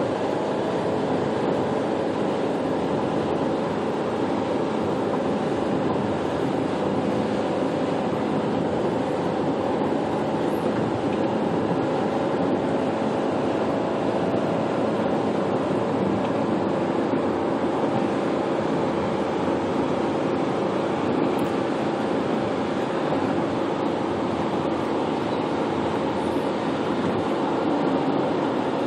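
Steady road and tyre noise inside a moving car's cabin, with a faint even drone under it.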